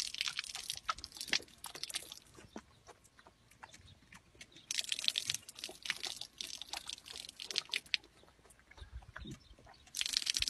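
A goat drinking from an outdoor tap: wet lapping and slurping clicks with water trickling. The sound comes in bursts near the start, around the middle and again near the end.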